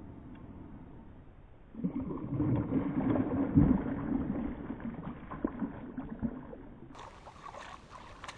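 Water splashing and sloshing around a canoe, rising about two seconds in, loudest near the middle, then dying away.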